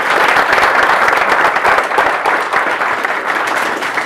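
Audience applauding: many hands clapping at a steady level, tailing off slightly near the end.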